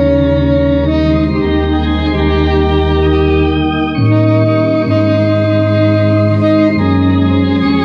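Harmonia HS 200 Super electronic organ playing a hymn in sustained four-part chords, joined by a tenor saxophone; the held chords change every second or two.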